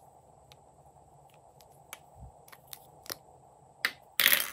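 Small plastic clicks as the caps are pulled off pencil-shaped lip balm tubes, several over about two seconds, then a louder brief scraping rustle of plastic near the end.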